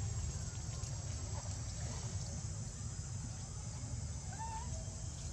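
Outdoor ambience: a steady low rumble and a steady high hiss, with a couple of faint short chirping calls about a second before the end.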